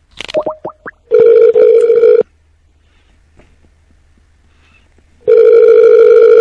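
Ringback tone of an outgoing phone call: two loud warbling rings about three seconds apart, after a few short rising chirps as the call connects.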